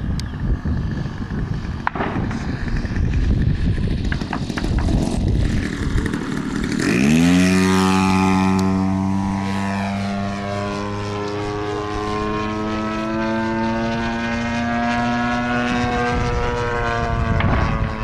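Small piston engine of a radio-controlled model airplane, heard at first as a rough, noisy rumble. About seven seconds in the engine note swells to its loudest as the plane passes close and drops sharply in pitch, then holds a steady drone that slowly rises before falling away again near the end.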